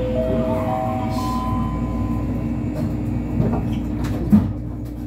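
Door-closing chime of a stopped Busan–Gimhae Light Rail car: four notes rising in pitch, each starting before the last has faded, over the car's steady hum. A single sharp thud follows a little after four seconds in, as the doors shut.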